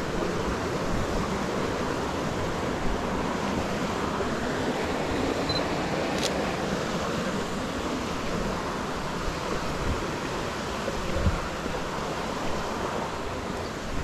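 Steady rush of running water, even and unbroken, with a small click about six seconds in.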